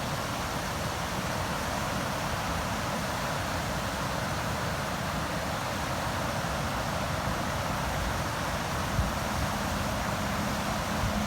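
River water rushing steadily: an even hiss of flowing water with a low rumble beneath it. A faint, steady low hum comes in near the end.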